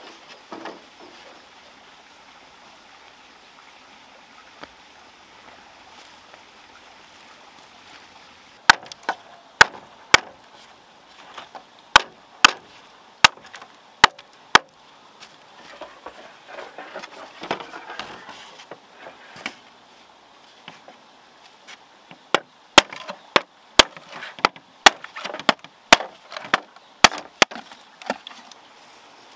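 Machete chopping bamboo: two runs of sharp strikes, roughly two a second, the first starting about a third of the way in and the second near the end. Softer rustling and scraping of bamboo strips comes between the runs.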